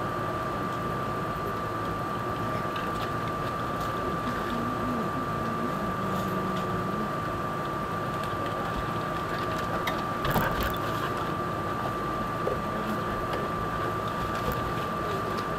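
Steady background noise with one constant whistle-like tone running through it, and a short sharp click about ten seconds in.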